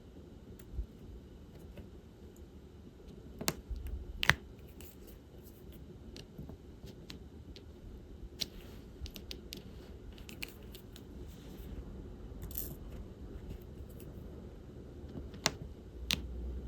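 Small plastic clicks and taps of diamond-painting work: resin drills picked up with the drill pen and pressed onto the canvas, rattling lightly in the tray. A few louder, sharper clicks stand out, two close together about a third of the way in and two near the end.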